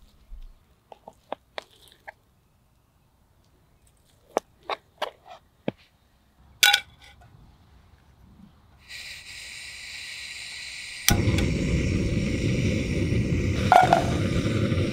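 Knife clicking against a plastic cutting board as Spam is sliced, a few separate taps. About nine seconds in a high hiss starts, and about eleven seconds in it is joined by a loud, steady rush of a lit gas canister stove burner, with one clunk of the skillet or food near the end.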